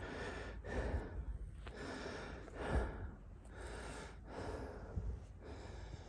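A man breathing hard from exertion while pushing through dense brush, a breath roughly every second. A couple of dull thumps stand out, the louder one about three seconds in.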